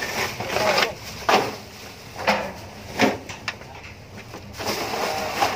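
Rustling of large black plastic garbage bags being handled up close, with several sharp knocks and thumps as the bags are moved.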